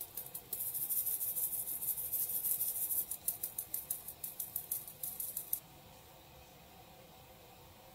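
Rapid, rhythmic light clicking of a kitchen utensil, about seven clicks a second, that stops abruptly about five and a half seconds in.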